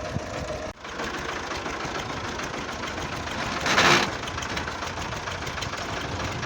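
Tractor diesel engine running steadily. There is a brief dropout just under a second in, and a short, loud hissing burst about four seconds in.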